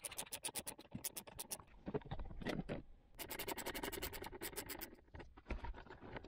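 Socket ratchet clicking rapidly, about ten clicks a second, in a few short runs while Torx T25 screws are backed out, with scuffing handling noise between the runs.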